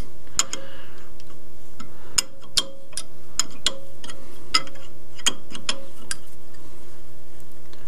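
Irregular sharp metallic clicks, about a dozen over six seconds, as a hand tap in a T-handle tap wrench is worked by hand in a part held in a lathe chuck. A steady low hum runs underneath.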